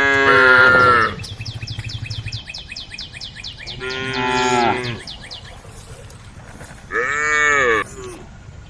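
Cows mooing: three long moos of about a second each, one at the start, one around the middle and one near the end.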